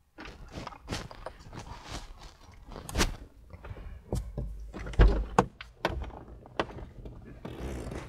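Handling noises inside a car cabin: a run of clicks, knocks and rustles, with a sharp knock about three seconds in and a dull thump about five seconds in.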